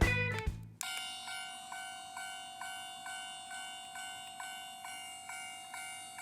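Toy railroad crossing's electronic warning bell ringing 'kan-kan', a ding repeating about twice a second, starting about a second in.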